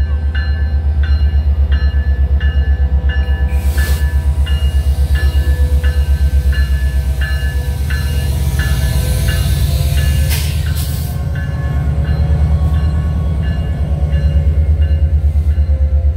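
Canadian Pacific GP20C diesel locomotive passing slowly, its engine running with a low pulsing rumble and its bell ringing about twice a second. A hiss rises for several seconds in the middle, with a couple of clanks.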